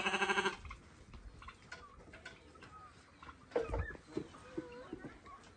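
Farm animals calling: one loud bleat at the start, then scattered clucks and chirps of chickens and small birds. A single knock falls about three and a half seconds in.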